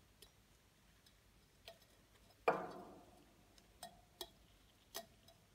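Faint light ticks and clicks of a gloved hand handling a glass beaker with a wire-mesh insert. About halfway through, one louder knock on the glass rings briefly and fades.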